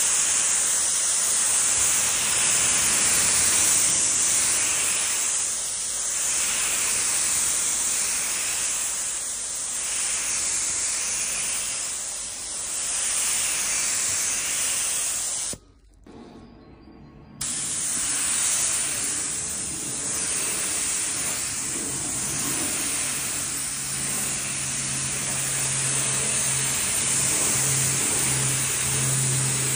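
Spray gun hissing steadily as it sprays paint onto homemade lead fishing jigs. The spray cuts off for about two seconds around the middle, then starts again, and a low hum joins it in the second half.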